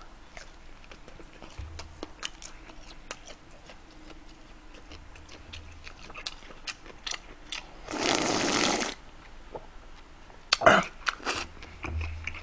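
A person chewing a bite of seaweed-wrapped gimbap close to a microphone: soft wet chewing with many small crunchy clicks. About eight seconds in comes a loud noisy rush lasting about a second, and a few sharper mouth sounds follow shortly after.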